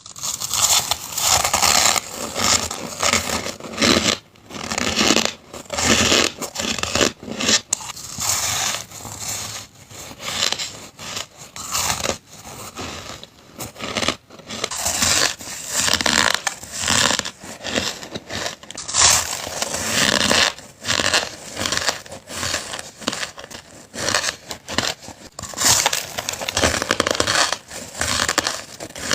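Hard crushed ice bitten and chewed close to the microphone: loud, crunchy cracks one after another, with short pauses between mouthfuls.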